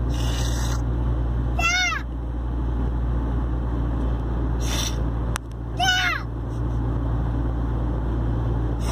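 Squeaky, meow-like mouth noises from a man who has just had a molar pulled, each rising then falling in pitch, about two seconds in and again about six seconds in, with short hissy bursts of air before them. Steady road and engine rumble of a moving car underneath.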